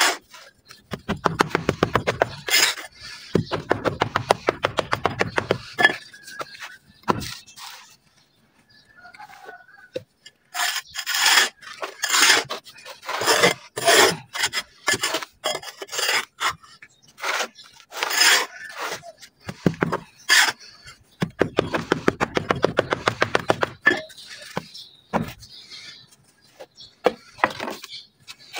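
Red dirt being scraped and rubbed in bursts of fast rasping strokes, with a short pause about a third of the way in.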